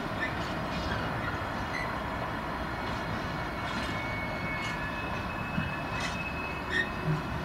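Steady low rumble of diesel locomotives, with the brakes of a Class 66 freight locomotive squealing in thin high tones from about four seconds in and a few short squeaks near the end.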